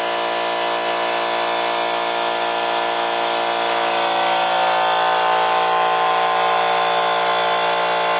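A machine running steadily with a constant, many-toned mechanical hum, unchanging in pitch and level.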